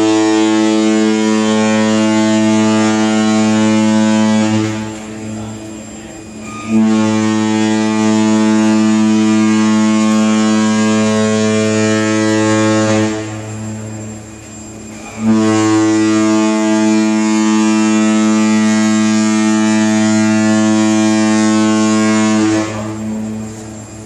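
Cruise ship's horn sounding three long blasts, each a deep steady tone lasting about six seconds, with short gaps between them.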